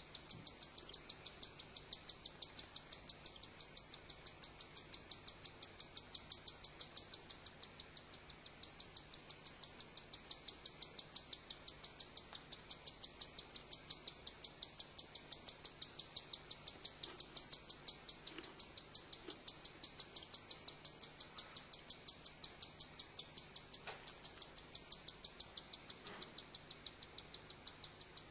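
Cockatiel chicks giving their begging call: a rapid, steady series of short high-pitched cheeps, about five a second, without a break.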